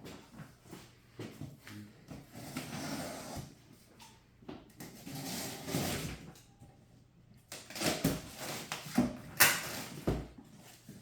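A large cardboard printer box being handled and opened: irregular scraping, rustling and knocks, with the loudest sharp scrape about nine seconds in.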